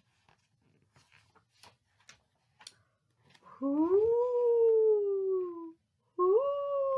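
A woman's voice howling 'Hoooo woooo' in imitation of a snowstorm's wind: two long howls, each sliding up and then slowly falling, the first starting near the middle and the second about six seconds in. Before them come faint rustles and taps of book pages being turned.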